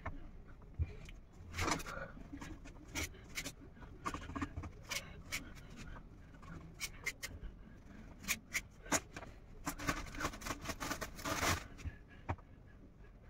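Crusts being cut off slices of bread: an irregular run of short scrapes and taps, with a longer, louder scrape near the end.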